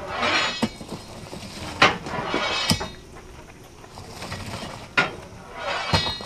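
Metal clanks and scraping on a steam locomotive's footplate as a crewman works with a long-handled metal tool. There are about five sharp knocks, with short scraping hisses between them.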